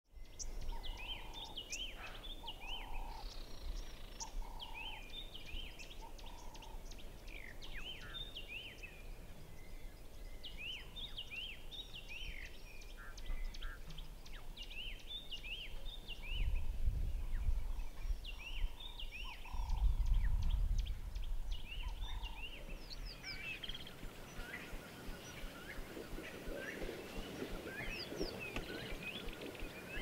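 Outdoor bush ambience: many birds chirping and whistling in repeated short phrases over a steady background hiss. There are two spells of low rumble past the middle.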